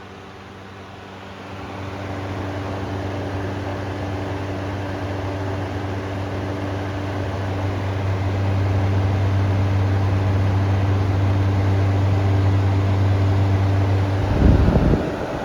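Honeywell HT-70-19 10-inch table fan running on high speed: a steady motor hum with the whoosh of air through the blade and guard. It grows louder about two seconds in and again about halfway, and a brief low rumble comes near the end.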